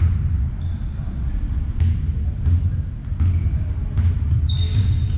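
Basketball being played on an indoor court: sneakers squeaking on the floor several times and the ball bouncing, over a steady low rumble.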